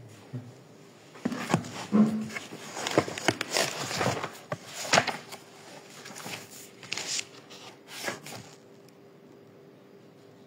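Irregular rustling, clicks and knocks of things being handled, dying away about eight and a half seconds in, leaving a faint steady hum.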